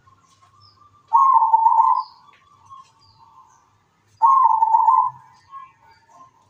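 Zebra dove (perkutut) cooing: two loud phrases about three seconds apart, each a quick run of notes lasting about a second, followed by softer notes.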